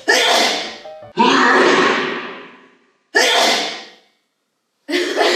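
Three sudden bursts of sound, each with a long echoing tail that fades out over one to two seconds, followed by a moment of dead silence. The bursts appear to be added in editing.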